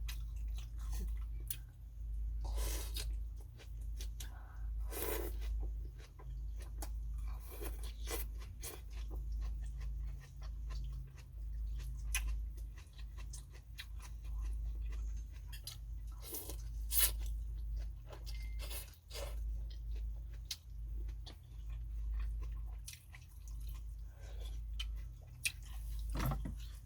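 Close-miked chewing and eating sounds of a person eating phở: irregular crunchy clicks and smacks, over a steady low hum.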